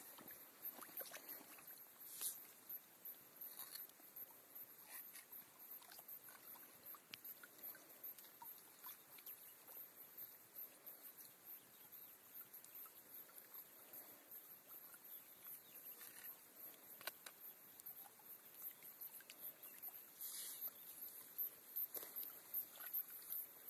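Faint splashing and trickling of lake water as a gutted brown trout is rinsed by hand at the water's edge, with scattered small clicks and knocks.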